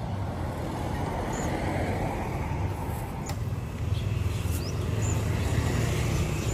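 Steady low rumble of road traffic, with a few faint high chirps over it.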